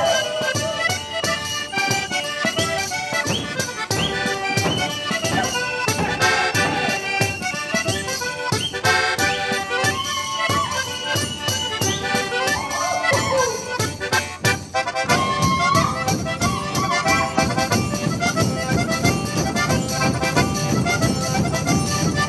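Saltarello dance tune played on accordion over a fast, steady tambourine beat; about fifteen seconds in the lower part of the music grows fuller.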